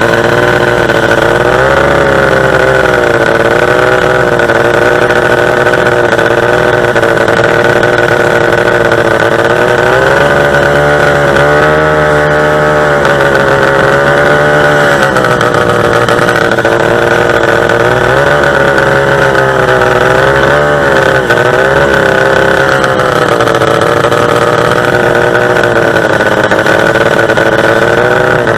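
Two-stroke racing-boat engine running hard, its pitch wavering up and down as the revs rise and fall, with a couple of deeper dips in the middle.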